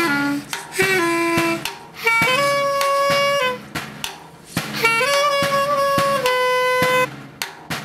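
Solo clarinet improvising in a jazz-like style: a few long held notes, some with a short upward slide into them, and a pause of about a second in the middle. Sharp taps on a snare drum sound under the notes.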